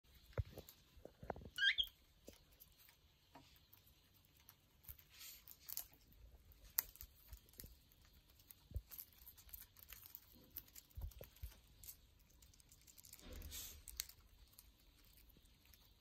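Cockatiel nibbling and tearing at fresh leaves on a wooden tabletop: scattered soft clicks, crackles and rustles of beak and leaf. About a second and a half in comes one short rising chirp, the loudest sound.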